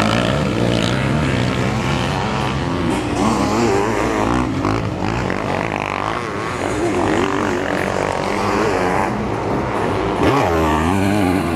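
Several sidecar motocross outfits racing on a dirt track, their engines revving hard and rising and falling in pitch through gear changes and throttle.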